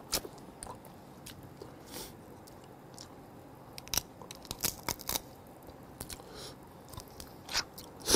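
A person chewing and crunching on shellfish, with scattered sharp crunches and clicks of shell between quieter chewing.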